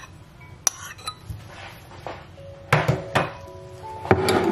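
Metal spoon clicking and scraping on a ceramic plate as grated garlic is knocked off it, with a few sharp clinks about a second in and louder scrapes near the end. Soft background music with held notes comes in about halfway through.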